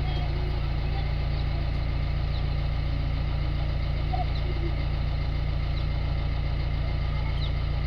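Diesel engine idling steadily at an even, unchanging speed, with a deep, regular low throb.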